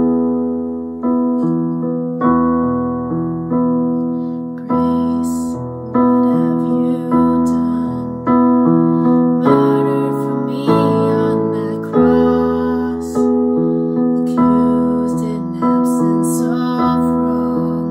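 Digital piano playing a slow worship-song accompaniment, one chord struck roughly every second and left to ring. Singing comes in over it about five seconds in.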